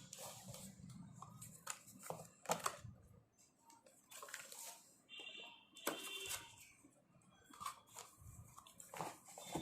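Scattered soft clicks and rustling of a keyboard and its packaging being handled, with a brief high squeak about five seconds in.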